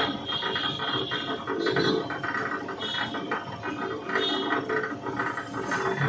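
Electric 1 hp wire stripping machine running, its geared feed rollers giving a fast, busy rattle of clicks, with a higher whine that comes and goes several times.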